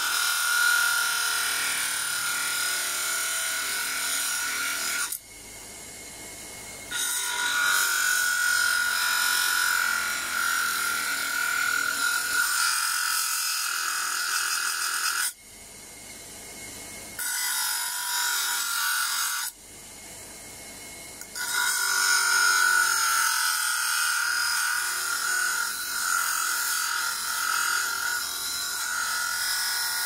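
Homemade disc sander driven by a reused washing-machine motor, grinding metal against its spinning sandpaper disc: a steady abrasive rasp with a high whine over it. Three times it drops abruptly to a quieter level for a second or two.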